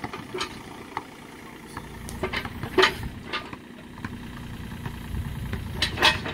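A John Deere 35D compact excavator's diesel engine runs steadily as the boom and bucket are worked, with a handful of sharp knocks and clanks over it. The loudest knocks come about three seconds in and again near the end.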